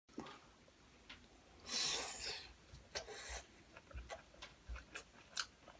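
A person eating salmon sushi: chewing and small mouth clicks, with a brief breathy hiss about two seconds in.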